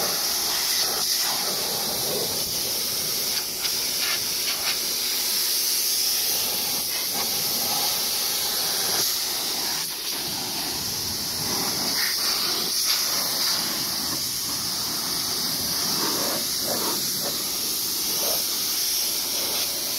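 Pressure washer wand spraying a steady hissing jet of water onto a dirt bike's wheels and bodywork, the spray sound shifting a little as the jet moves across different surfaces.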